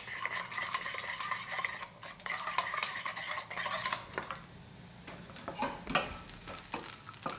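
Wooden spoon stirring a soy sauce and sugar syrup in a small stainless steel bowl, scraping and ringing against the metal for about four seconds. Then a spatula stirs dried anchovies and roasted peanuts in a frying pan, with scattered clicks and sizzle.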